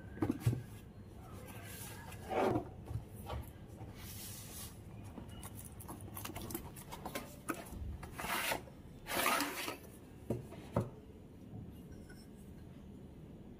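Cardboard packaging handled and opened: boxes sliding and rubbing against each other and a lid flap pulled open, in several short rustling swishes with a few light knocks near the start.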